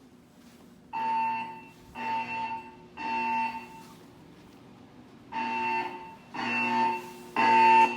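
Fire alarm speakers of a Siemens MXL-V voice evacuation system sounding the temporal evacuation tone. There are two groups of three beeps, about one a second, with a pause of about a second and a half between the groups.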